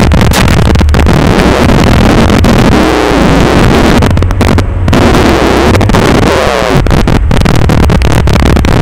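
Heavily overloaded in-car audio of a Mitsubishi Lancer Evolution VI's turbocharged 2.0-litre four-cylinder running while the car moves at low speed, clipped into a harsh, steady roar of noise, with a brief dip about halfway through.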